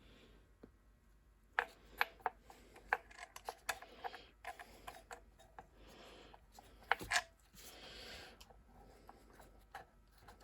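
Scattered light clicks and small knocks with some soft rubbing: small metal parts of a Honda small engine's recoil starter being handled and turned over.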